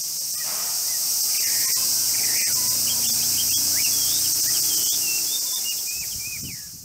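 A steady, high-pitched drone of summer cicadas, with short bird chirps joining from about halfway through. The sound fades out at the very end.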